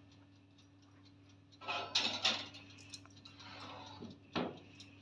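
Metal cake tin set onto the wire rack of a countertop electric oven with a few clinks and scrapes about two seconds in, then the oven's glass door shut with a sharp click a little after four seconds. A faint steady hum runs underneath.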